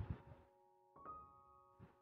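Faint background music: held keyboard notes, with a new chord about a second in, over a soft beat.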